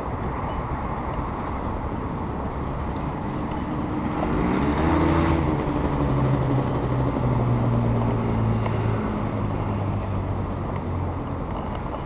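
A motorcycle engine comes close, over steady city traffic noise. Its note is loudest in the middle of the stretch and drops in steps before fading near the end.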